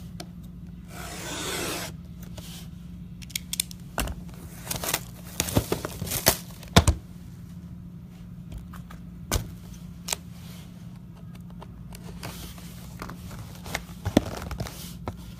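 A sealed box of Topps Museum trading cards being unwrapped and opened by hand: plastic wrap tearing and crackling, then cardboard scraping with many short clicks as the box and packs are handled.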